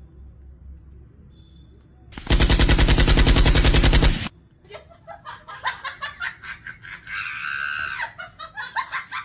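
A burst of rapid automatic gunfire, like a machine gun, about two seconds long. It starts about two seconds in and cuts off abruptly.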